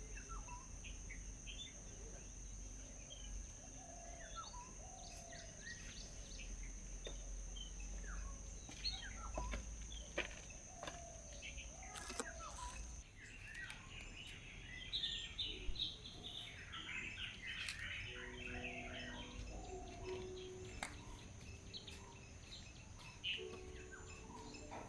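Small birds chirping and twittering, with many short calls and a dense burst of rapid chattering about two-thirds of the way in. A steady high-pitched tone runs beneath until about halfway, then stops.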